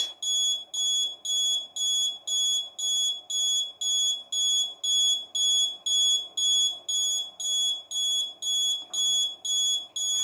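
Alarm buzzer of an Arduino DS3231 alarm clock beeping, short high-pitched beeps about two and a half times a second: the alarm time has been reached and the alarm is sounding.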